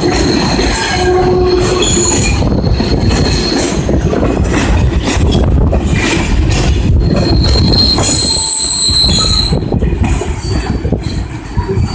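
Freight train of car-carrying wagons rolling past close by: a loud, steady rumble with wheel flanges squealing high on the rails near the start and again louder around the middle, and sharp clanks of wheels over rail joints.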